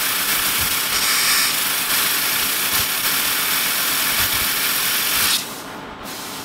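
Compressed air hissing from a blow-gun nozzle aimed at a marine generator engine's turbocharger compressor wheel, spinning the wheel. The hiss cuts off suddenly about five seconds in, leaving a quieter background.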